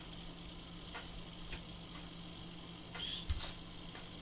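Faint clicks of a computer mouse and keyboard over steady microphone hiss and a low hum, with a slightly louder cluster of clicks about three seconds in.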